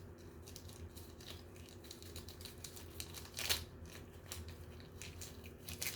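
Toy packaging being handled and opened: a run of rustles and crackles, with one louder crackle about three and a half seconds in.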